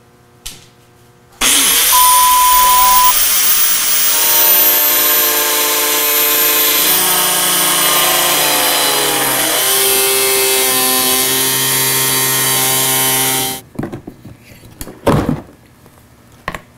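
DeWalt angle grinder with an abrasive cut-off wheel whining up to speed and cutting through a plastic bumper cover, running steadily with its pitch shifting as the wheel bites, then stopping abruptly near the end. The abrasive wheel tends to melt the plastic rather than cut it. A couple of short knocks follow once it stops.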